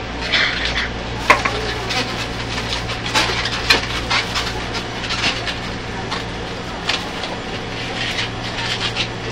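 Latex modelling balloons squeaking and rubbing in short, irregular squeals as they are twisted into a balloon hat, over a steady low hum of a train carriage.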